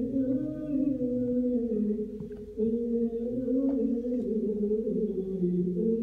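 Wordless singing in long, slowly wavering held notes that dip briefly about two and a half seconds in, with a few faint clicks.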